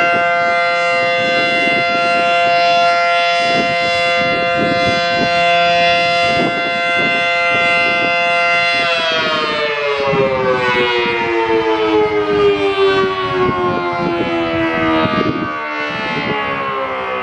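Federal Signal Model 7T outdoor warning siren, a 9/12 port dual-tone model driven by a capacitor-start induction motor, sounding a steady alert tone. About nine seconds in the alert ends and the siren winds down, its two-note chord falling steadily in pitch as the rotor slows.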